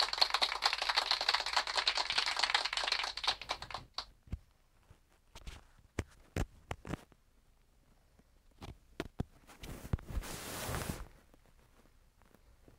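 A loud, harsh crackling noise for about four seconds that cuts off abruptly, followed by scattered small clicks and taps and a brief rustle about ten seconds in.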